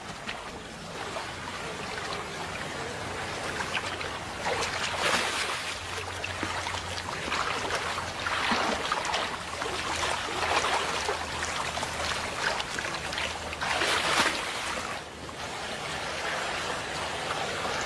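A brown bear wading through a shallow river, its legs sloshing and splashing in irregular swells over the steady rush of running water.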